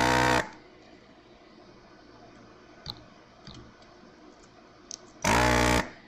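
Two short buzzing bursts from a vacuum desoldering gun's pump, each about half a second long, near the start and again about five seconds in, sucking molten solder off the charging jack's pins. A few faint small clicks fall between them.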